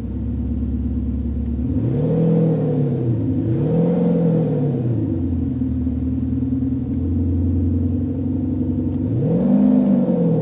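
Diesel car's Cargraphic Active Sound exhaust system, set to its high-tone sound characteristic, idling and blipped: two quick revs about two and four seconds in, then another rev near the end.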